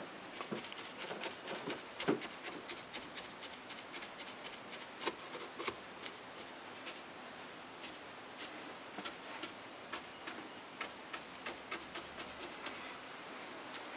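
A large round bristle brush dabbed onto a painted fascia board with punching strokes: a quick, uneven run of soft taps and scratchy bristle rubs.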